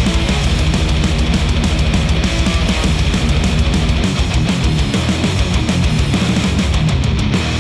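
Heavy rock music with electric guitar and a steady beat, played back through HIFIMAN Edition XS open-back headphones and picked up by microphones at the earcups.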